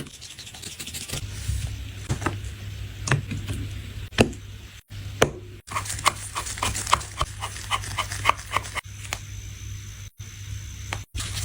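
Small clicks and taps of hand tools on a smartphone being repaired, including a quick run of ticks about four a second in the middle, over a steady low hum.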